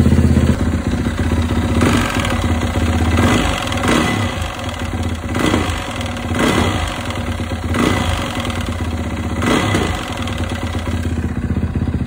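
Yamaha WR450F single-cylinder four-stroke engine running and blipped again and again, with a knocking clatter that grows worse with the revs instead of smoothing out. The knock comes from a badly worn piston slapping in its cylinder.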